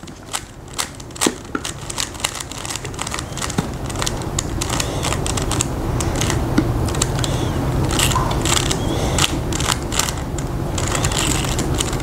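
Plastic Rubik's cube being twisted quickly in the hands: a run of irregular sharp clicks and clacks from the turning layers, with a low rustling noise that builds up after a few seconds.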